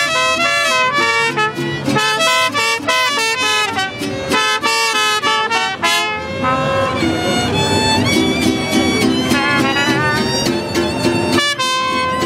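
Live mariachi band playing an instrumental break between sung verses: violins and trumpets over strummed guitars. Quick repeated chords in the first half give way to longer held notes after about six seconds.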